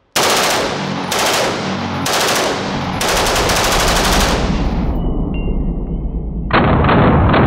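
CETME LC roller-delayed 5.56 mm rifle firing on full auto: several long bursts of rapid shots, one after another. The rate of fire is very fast, which the shooters put a little above its 650–850 rounds-per-minute spec. About two-thirds of the way through, the fire turns duller.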